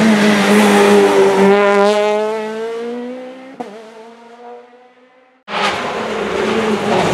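Rally car engine at high revs, its pitch rising as it accelerates away and fading into the distance, with one sharp pop about three and a half seconds in. The sound then drops out abruptly and another rally car's engine comes in loud and close.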